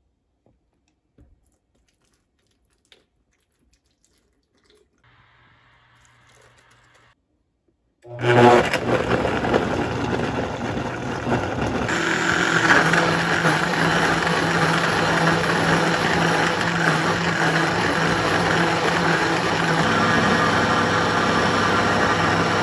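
Countertop blender starting about eight seconds in and running steadily, blending frozen fruit and almond milk into a smoothie. Its sound shifts higher and brighter about four seconds after it starts. A few faint clicks come before it.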